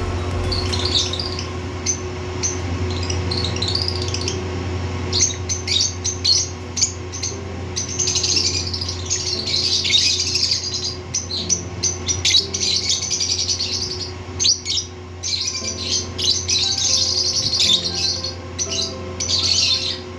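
Several lovebirds chirping together: a dense chatter of rapid, high chirps, busiest in the middle and near the end, over a steady low hum.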